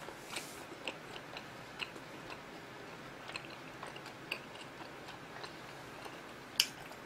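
A person chewing food with the mouth closed, close to the microphone: faint wet mouth clicks every so often, with one sharper click near the end.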